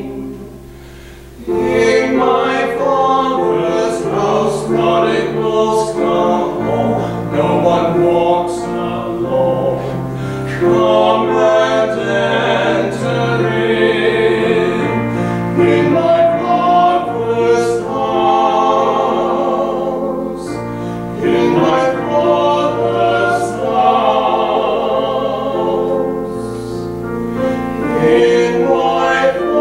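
Male singing of a sacred song with keyboard accompaniment, the music pausing briefly about a second in before the next phrase.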